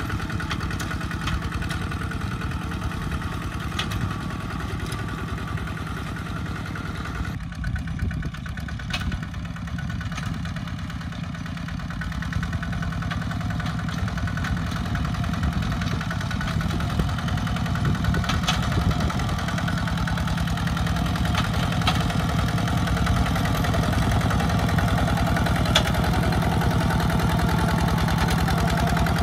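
Single-cylinder diesel engine of a two-wheel walking tractor running steadily under load while pulling a disc plough. The sound changes abruptly about a quarter of the way in, then grows louder through the second half.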